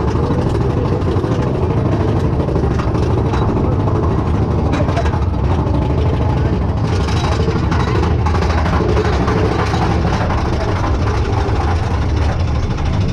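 Mine-train roller coaster running along its track: a steady, loud rumble with scattered short clicks and rattles.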